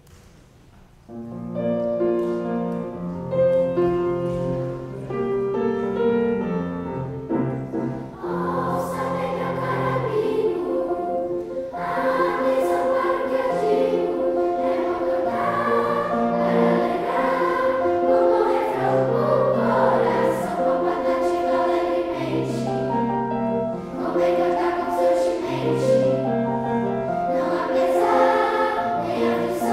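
Children's choir singing a four-part canon with piano accompaniment. The music starts about a second in and grows fuller about eight seconds in.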